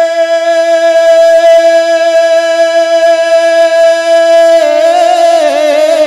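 A man singing a naat, holding one long steady note, then breaking into quick wavering ornaments about four and a half seconds in.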